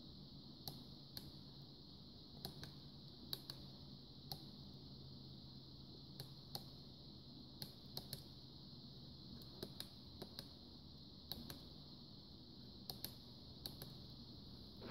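Small plastic push-buttons on an ImmersionRC RF power meter clicking, about two dozen quick presses at uneven intervals, over a faint steady high-pitched hiss and low hum.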